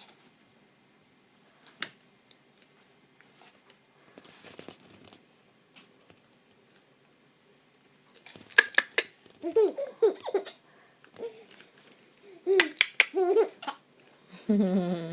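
Baby laughing in short bursts of high-pitched squeals, starting about halfway in after a quiet stretch with a few faint clicks, with sharp hissy sounds between the laughs.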